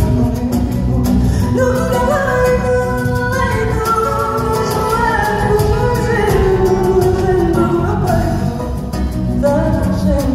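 A woman singing a fado melody live with guitar accompaniment, in long, bending sung lines over a heavy low rumble.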